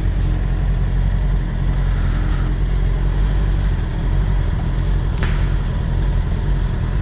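Motorcycle engine idling steadily, with a short click about five seconds in.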